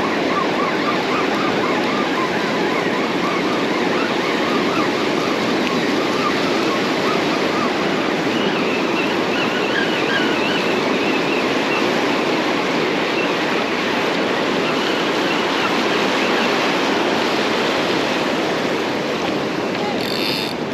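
Ocean surf washing up a sandy beach: a steady rush of small breaking waves.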